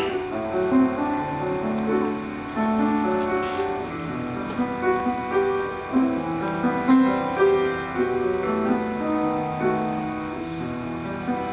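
Piano playing the instrumental introduction to a Christian song, with guitar accompaniment, before the vocal enters.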